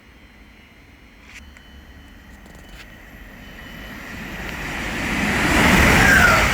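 Grand Central Class 180 Adelante diesel multiple unit approaching along the main line at speed, growing steadily louder, with a falling tone as it rushes past near the end.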